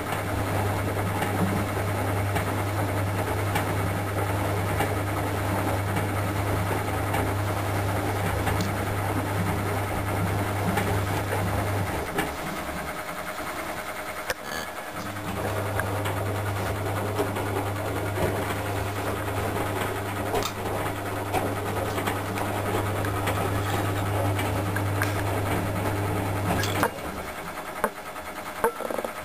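Predom Polar Westa 85 front-loading washing machine tumbling wet laundry in its Bio wash: the drum motor hums steadily for about twelve seconds, stops for about three seconds, runs again for about twelve seconds, and pauses once more near the end.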